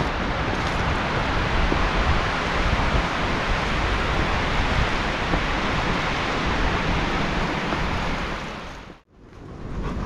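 Strong wind rushing through forest trees: a steady noise of wind in leaves and branches. It fades away to silence about nine seconds in and quickly comes back.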